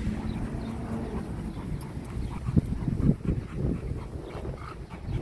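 Dogs panting and sniffing, with a few short huffs in the middle.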